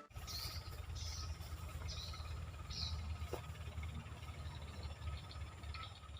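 Faint outdoor ambience: a steady low rumble with a few short high chirps in the first three seconds and one faint tap a little after the middle.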